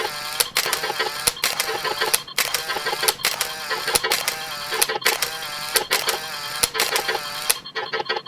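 Camera shutter snap sound effects repeating about once a second, overlapping a synthetic text-to-speech voice counting.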